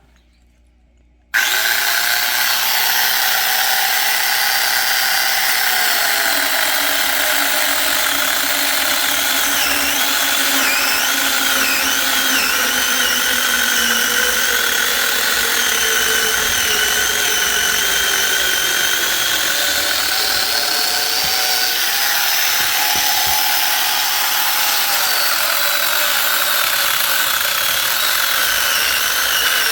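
Power saw running continuously while cutting firewood, its pitch wavering up and down; it starts abruptly about a second in.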